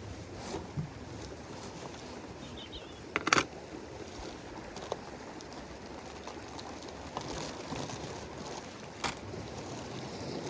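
A steady outdoor hiss of wind and sea, with a few sharp clicks or knocks. A quick cluster of clicks about three seconds in is the loudest, and single clicks fall near one, five and nine seconds in.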